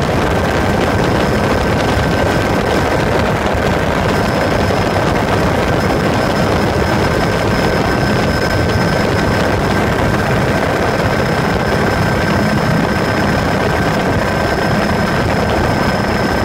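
Helicopter in flight, heard from on board: a loud, steady din of rotor and engine with a thin high whine over it.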